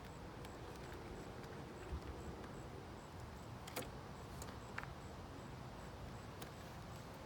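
Faint scattered clicks and taps, a few seconds apart, over a low steady outdoor background, with a faint high-pitched tone pulsing about three times a second.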